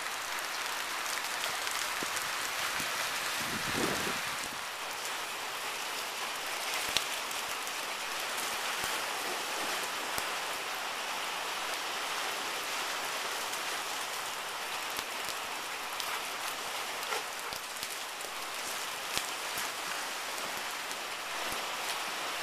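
Steady rain falling on grass and floodwater, an even hiss with scattered sharp ticks of drops.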